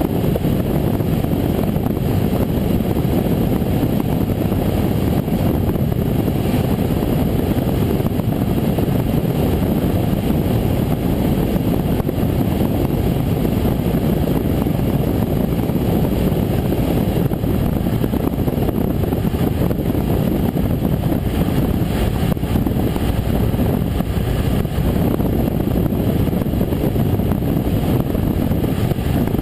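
Cessna 172M's four-cylinder Lycoming engine and propeller running steadily in flight, heard from inside the cabin as a constant, unchanging noise.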